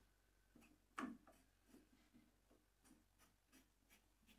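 Shop-made wooden bar clamp being tightened: a faint wooden knock about a second in, then soft, evenly spaced ticks, about three a second, as the clamp's screw is turned.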